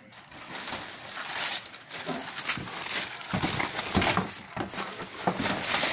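Wrapping paper being ripped and crumpled off a large gift box: a run of irregular tearing and crinkling that grows louder over the first second.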